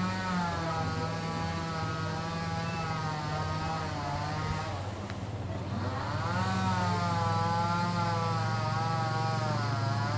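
WZ 500 rail-laying machine running steadily while it pulls rail, a low engine hum under a wavering high whine. The whine comes in two long stretches with a short dip between them about halfway through.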